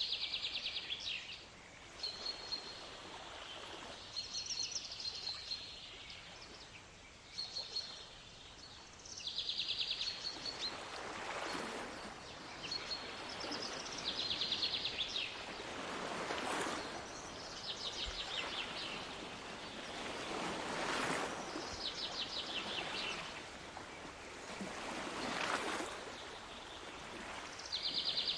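Waves washing ashore in slow swells about every four to five seconds, with a songbird repeating a short, rapid trilled call over the surf.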